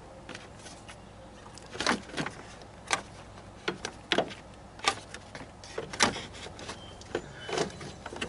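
Plastic cooling-fan shroud assembly knocking and scraping against the radiator and engine bay as it is worked down into place by hand: a string of irregular sharp knocks and clatters, the loudest about six seconds in.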